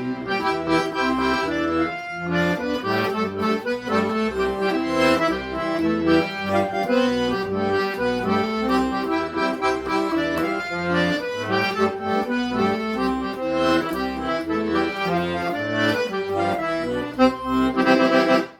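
Accordion playing a lively forró instrumental, quick melody notes over a steady bass-and-chord pulse, cutting off suddenly at the end.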